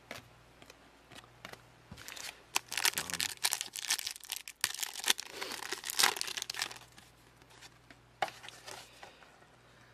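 Foil trading-card booster pack wrapper torn open and crinkled by hand, a dense run of crackling from about two and a half to seven seconds in. A few scattered clicks follow near the end.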